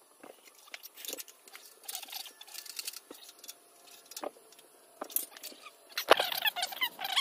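Irregular metallic clicks, scrapes and squeaks of outboard motor parts handled and fitted together as a Mercury powerhead is lined up on its exhaust tube and midsection, with a louder clatter about six seconds in.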